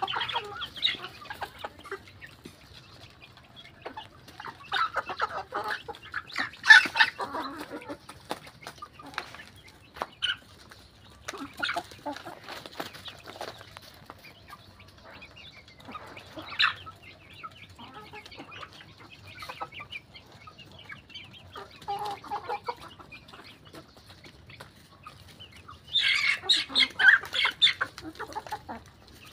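A flock of young fighting-breed chickens clucking, in short irregular calls that come in clusters, loudest about six to seven seconds in and again near the end.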